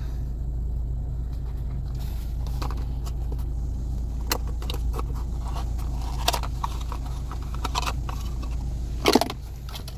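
Steady low hum of the Nissan Xterra running, with scattered clicks and snaps of plastic trim and the rear AC cooler switch being handled. The loudest snap comes about nine seconds in.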